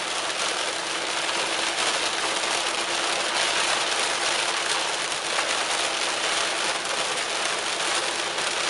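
Heavy rain on a moving car's roof and windshield, with tyres on the wet road: a steady hiss heard from inside the car.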